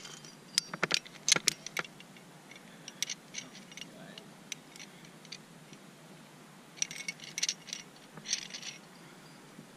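Metal climbing gear on a harness (carabiners and quickdraws) clinking and jangling, with a quick run of sharp clicks about a second in as a carabiner is clipped to a fixed piton. Two more short bursts of jangling come near the end.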